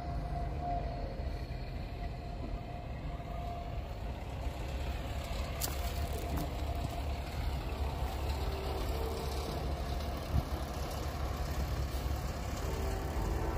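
Diesel semi-truck engines running at low speed by the crossing, a steady low rumble.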